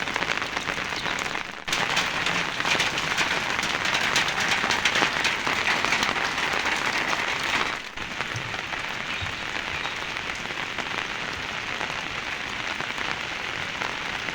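Heavy rain falling, a steady dense hiss of many drops striking surfaces. It gets abruptly louder about one and a half seconds in and drops back a little near eight seconds in.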